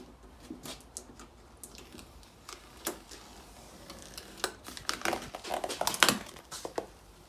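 Vinyl wrap being peeled by hand off a car's painted panel: irregular crackling and tearing as the sticky film comes away, thickest around five to six seconds in.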